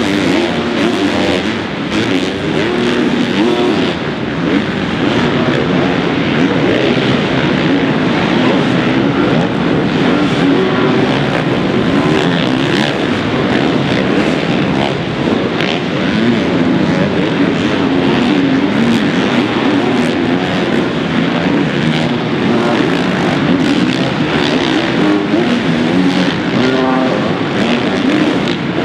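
Motocross bikes' four-stroke engines on a supercross track, revving up and down as riders throttle on and off through jumps and corners.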